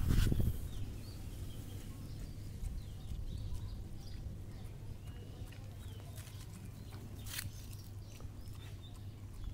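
A dog eating soft food from a steel bowl: steady chewing and mouthing, with a louder burst of noise at the start and a few sharp clicks about six and seven seconds in.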